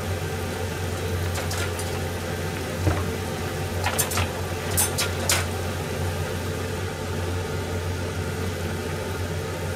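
Pot of soup simmering on a gas stove under a steady low hum, with a few sharp clicks and clinks about four to five seconds in.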